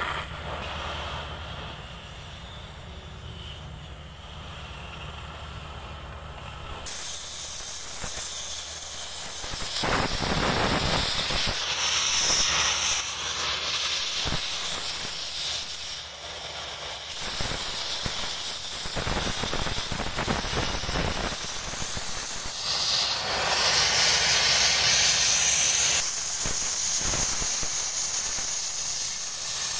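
Oxy-fuel cutting torch hissing as its oxygen jet burns through 20 mm steel plate. The hiss jumps suddenly louder about a quarter of the way in and stays loud.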